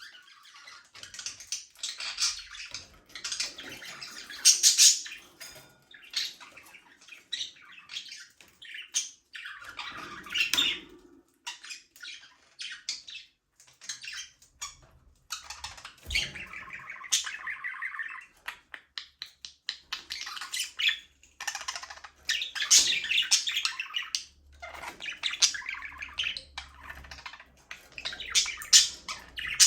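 A flock of budgerigars chattering and chirping, with many overlapping high warbles and squawks coming in bursts and short lulls.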